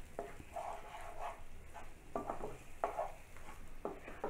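A utensil stirring and scraping a thick frying spice masala in a pan, in several separate short strokes.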